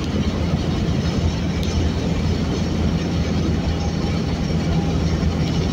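Suzuki Swift GTi's G13B four-cylinder engine and tyres running at a steady cruise, heard from inside the cabin as an even low hum with road noise.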